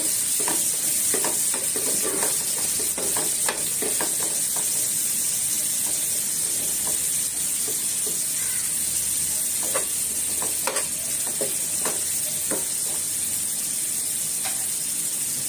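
Onions and tomatoes sizzling steadily in hot oil in a nonstick pan, with scattered light clicks and pops and a spatula stirring at the start.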